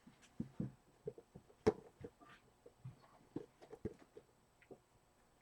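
Faint handling noises from a boxed Funko Pop figure: scattered soft knocks and clicks of the cardboard box and its plastic window, with one sharper click a little under two seconds in.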